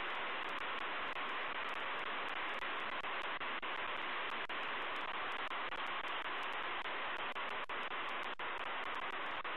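Steady, even static hiss from the nest camera's audio feed, with no eagle calls.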